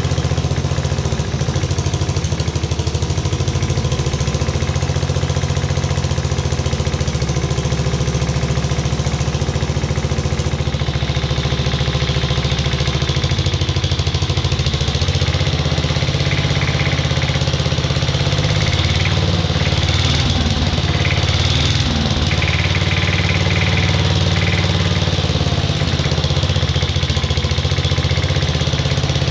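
Freshly rebuilt Briggs and Stratton model 23A single-cylinder engine running steadily on its first start, its pitch wavering slightly in the second half.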